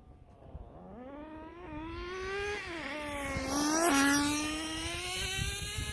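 Tamiya FS18LT two-stroke glow engine of a nitro RC car, fitted with a TM2 manifold and muffler, running with a high buzzing note. The pitch rises and falls with the throttle as it accelerates. It peaks in loudness about four seconds in, where the pitch drops sharply as the car goes past, then holds a steady high note.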